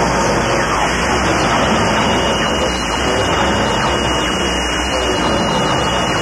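Power electronics music: a dense, unbroken wall of harsh distorted noise. A thin steady high whine comes in about half a second in and holds over it.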